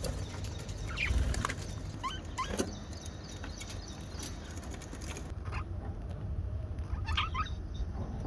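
Budgerigar giving short, sharp chirps: a few between one and three seconds in and a quick cluster about seven seconds in, over a low steady rumble.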